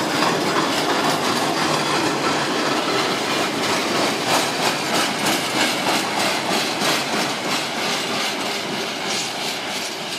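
Freight train of loaded steel-coil wagons rolling past close by, its wheels clattering in a steady rhythm over the rail joints. The sound eases a little near the end as the last wagons pull away.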